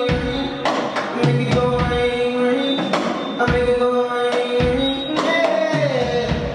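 Live R&B band music: drum hits under long held melodic notes.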